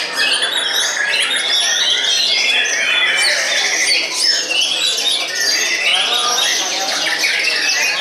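White-rumped shama (murai batu) singing in full voice from its contest cage, a continuous run of varied whistles, trills and chattering phrases, overlapping with other caged birds singing around it.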